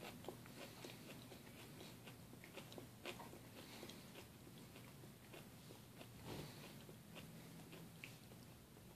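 Near silence with faint, scattered small clicks and smacks of a baby eating asparagus.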